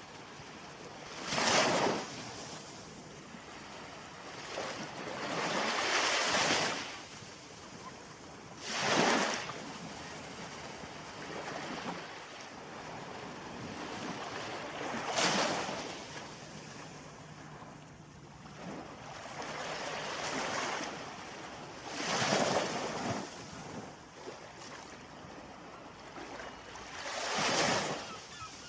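Ocean waves breaking: about six louder crashes spaced a few seconds apart, each swelling and falling away, over a steady wash of surf.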